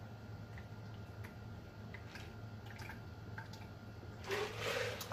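A man drinking from a large glass mug: faint swallowing and liquid sounds with small ticks, then a louder rush of breathy noise about four seconds in.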